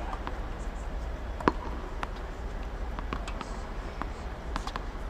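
Tennis rally on a hard court: a ball struck by rackets and bouncing, heard as a string of sharp pops, the loudest about a second and a half in, over a low steady hum.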